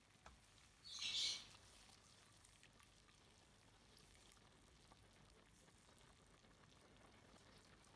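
A short splash of water in a pan of spaghetti and pasta water, about a second in, lasting about half a second. The rest is near silence with a few faint clicks.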